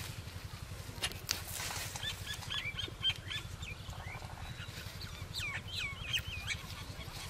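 Birds chirping: a quick run of short chirps that rise and fall in pitch, starting about two seconds in, over a low steady rumble, with a sharp click about three seconds in.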